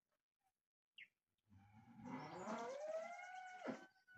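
A cow mooing: one long call of about two seconds that rises in pitch, then breaks off. A short bird chirp comes just before it.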